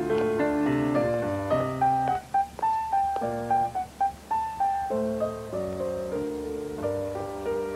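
Piano music from a film score: sparse single notes in the middle that give way to fuller chords near the end.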